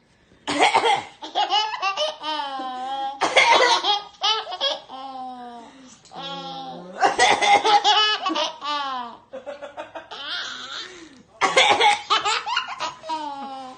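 A two-year-old boy laughing hysterically in long, breathy belly laughs, set off again and again by a fake cough. Four times a sharp burst comes first and is followed by a run of quick laugh pulses that fall in pitch.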